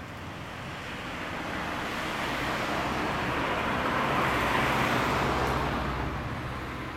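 A road vehicle passing on the street: a rush of noise that swells slowly to a peak about four seconds in and fades away, over a steady low hum.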